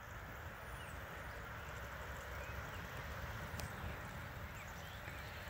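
Steady outdoor ambience of light rain falling on water, with a low rumble underneath and a few faint bird chirps. A single sharp click comes a little past the middle.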